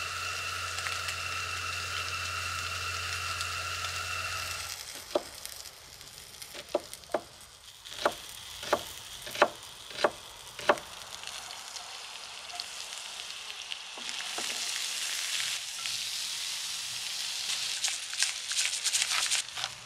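A steady hiss with a faint high whine for the first few seconds. Then a knife chopping on a cutting board, about a dozen sharp strikes. Then patties with chopped zucchini and onion sizzling in a cast-iron skillet, with crackling and the occasional scrape of a spatula.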